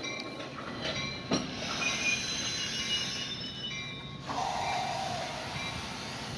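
Door-closing chimes on a Metra Budd passenger coach: short electronic chime tones repeating every second or so. Behind them is a hiss, and there is a sharp knock about a second in.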